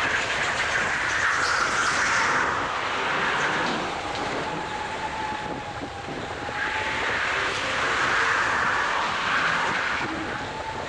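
Go-kart lapping at race speed, heard from a camera mounted on the kart: a steady rushing drone that swells, eases off about halfway through and swells again, with a faint thin whine underneath.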